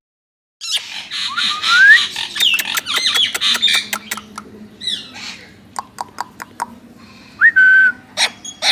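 Pet parakeets (an Indian ringneck and an Alexandrine) calling after about half a second of silence: squawks, rising whistles and many quick sharp clicks, with one short whistle held steady about seven and a half seconds in.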